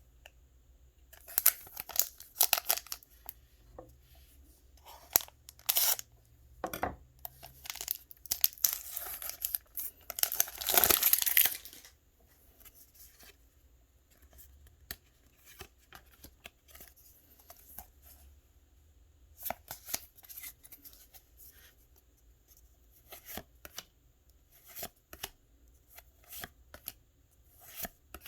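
Foil wrapper of a Pokémon trading card booster pack crinkling and tearing open in several irregular bursts, the longest and loudest tear about ten seconds in. Fainter rustles and clicks follow in the second half.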